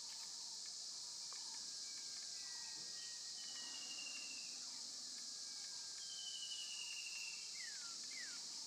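Steady high-pitched insect chorus, with birds whistling over it a few times: two long drawn-out whistles a few seconds apart, then two quick falling notes near the end.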